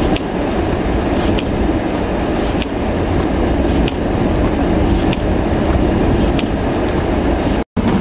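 Blizzard wind buffeting the microphone: a loud, steady, rumbling noise, with faint short ticks repeating about every second and a quarter. The sound drops out for an instant near the end.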